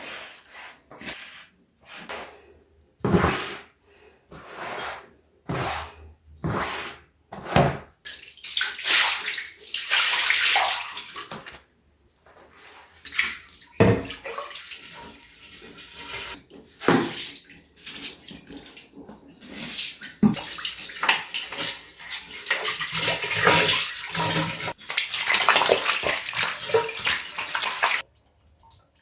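Water splashing and running in uneven bursts: short splashes at first, then longer stretches of running water that cut off suddenly near the end.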